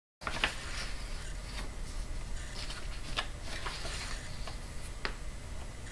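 Light handling noise on a worktable: scattered soft clicks and rustles over a steady low hum. It cuts in abruptly just after the start, with one sharper click near the end.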